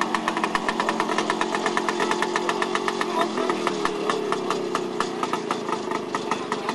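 IWL Berlin scooter's small two-stroke single-cylinder engine idling with a rapid, even beat.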